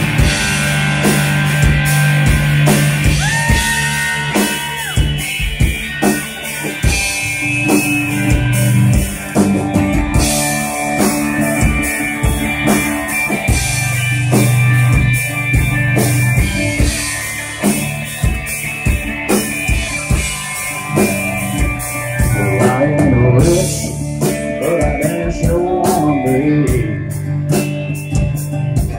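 Live country-rock band playing an instrumental passage: drum kit, electric and acoustic guitars.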